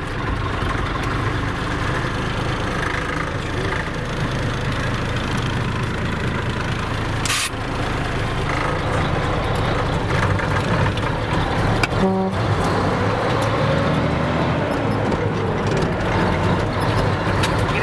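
Mack truck's diesel engine running steadily, heard from inside the cab just after start-up. There is a brief hiss about seven seconds in and a short pitched sound about twelve seconds in, and the engine grows a little louder in the second half.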